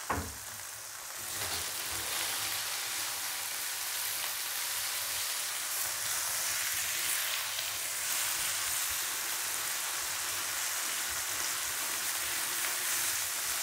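Chopped green chillies sizzling in hot oil with fried shallots in a wok: a steady frying hiss that builds up over the first second or so. A short knock comes right at the start.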